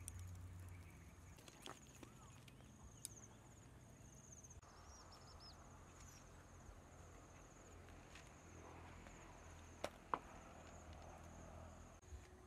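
Quiet rural ambience: a steady, faint high-pitched insect trill, with two sharp knocks close together about ten seconds in.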